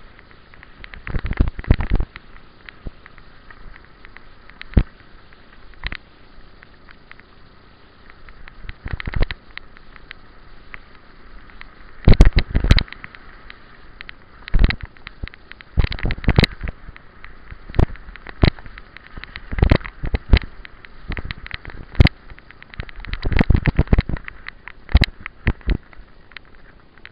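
Mountain bike rattling and clattering down a rough dirt trail at speed: irregular sharp knocks and bursts of clunks as the bike and its mounted camera jolt over roots and bumps, over a steady rolling hiss.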